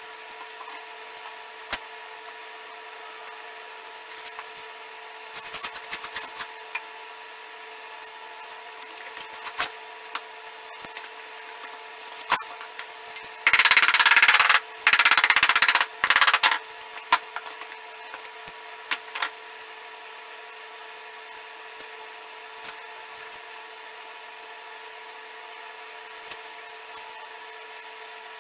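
Workshop handling of a clamp and a wooden disc on a glued-up wood urn: scattered knocks and clicks, with a loud rough scraping, wood rubbing on wood, in two stretches lasting about three seconds in the middle.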